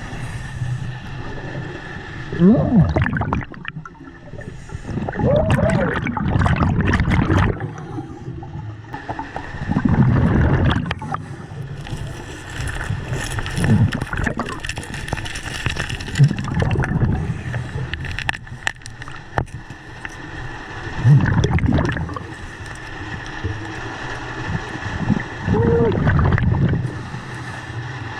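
A scuba diver breathing through a regulator underwater, each exhale letting out a gurgling rush of bubbles every few seconds.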